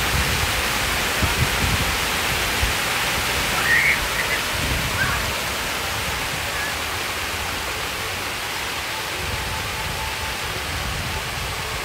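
Plaza fountain's many water jets splashing down into the basin: a steady rush of falling water.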